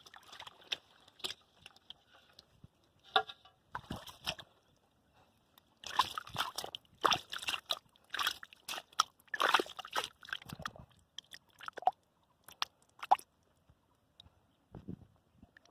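Irregular sloshing and splashing of muddy water, like hands groping through a mud hole. It comes in short, uneven bursts, busiest in the middle and thinning out near the end.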